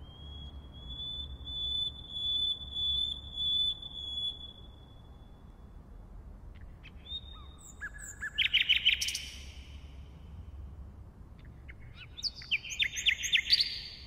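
Common nightingale singing: a long, high whistled note held for about five seconds, then two phrases of fast, rattling repeated notes a few seconds apart.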